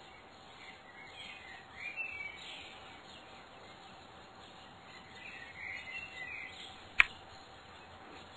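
Faint birdsong chirps over a quiet background, with one sharp click about seven seconds in.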